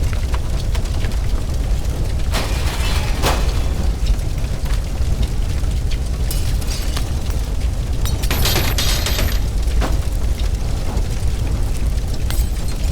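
Inside a burning house: a steady deep rumble of the fire with crackling bursts of falling debris, the loudest bursts about two and a half seconds in and again around eight and a half to nine and a half seconds in.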